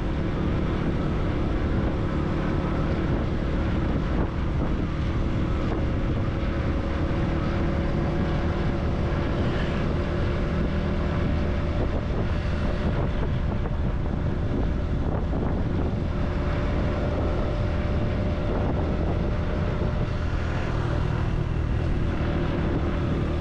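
Motorcycle running at a steady cruise on the road, with wind rushing over the microphone.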